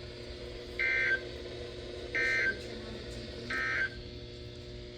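Emergency Alert System end-of-message data bursts from a NOAA Weather Radio broadcast: three short bursts of buzzing digital tones, evenly spaced, marking the end of the warning message. A faint steady hum runs underneath.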